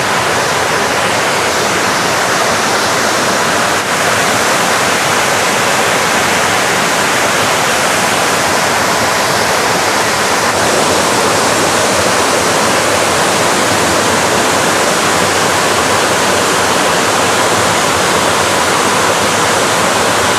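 Waterfall close by, a loud steady rush of falling water.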